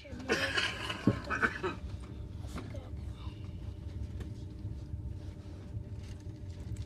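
Steady low rumble of a passenger train running, heard from inside the carriage, with a faint steady hum. Rustling and a few sharp knocks from the phone being handled come in the first two seconds.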